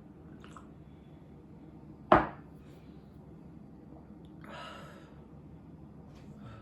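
A single sharp knock of something hard set down or struck in a kitchen, dying away quickly, with faint clicks and a soft rustle around it.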